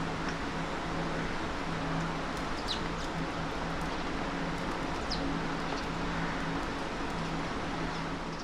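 Steady city background noise with a low hum, and a few short, high bird chirps, two of them clearer, about a third and two-thirds of the way through.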